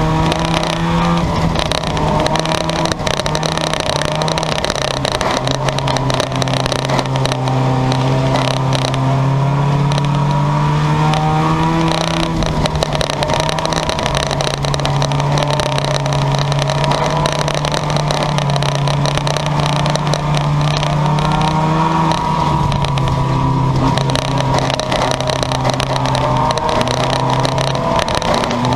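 Several junkyard race cars' engines running hard, their pitch shifting up and down repeatedly as the cars speed up and back off around the track.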